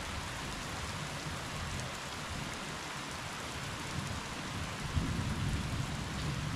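Steady rainfall heard through a window, an even hiss of drops, with a low rumble of distant thunder under it that swells about five seconds in.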